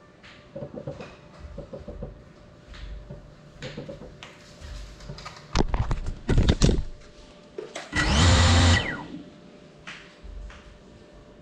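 Small FPV quadcopter being handled: knocks and scrapes as it is picked up and set down, then about eight seconds in a loud whir of its motors and propellers for about a second.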